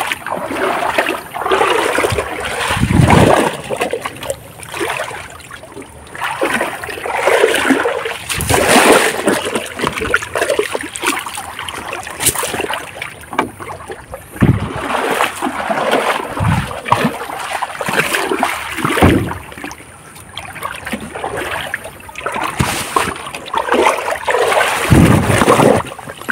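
Shallow river water splashing and sloshing in irregular bursts as it is stirred up while hunting for shrimp, with a few dull thumps among them.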